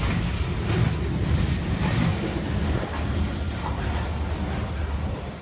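Freight train of covered hopper cars rolling past at close range: a steady rumble of steel wheels on rail with scattered clanks.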